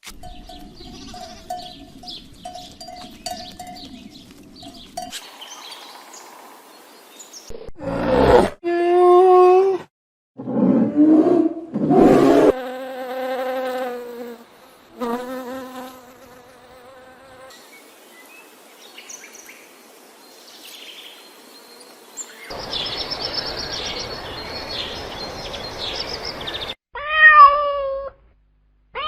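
A succession of different animal calls and cries, one after another: a pulsing buzz at the start, then several loud pitched calls, and a short wavering cry near the end.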